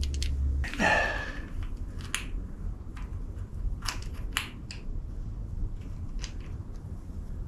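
Light metal clicks and taps as small parts are fitted by hand onto the cam sprocket of a Pontiac 350 engine, with a short rustle about a second in.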